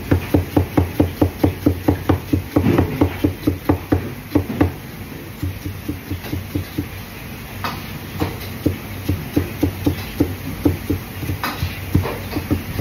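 Cleaver chopping an onion on a plastic cutting board: a quick, even run of knocks, about four or five a second, growing softer about five seconds in.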